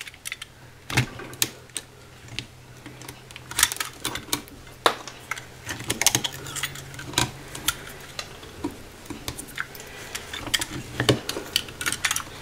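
Irregular sharp clicks and scrapes of pliers working against the resin lamp base and its metal fittings as old hot glue is picked and cut away. A low steady hum sits underneath.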